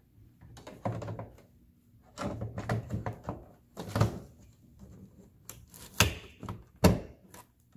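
Hard plastic pieces of a Frozen 2 Ultimate Arendelle Castle playset knocking and clicking as a part is pressed and snapped into place. It comes as a series of sharp, irregular knocks, the loudest a little after the middle and near the end.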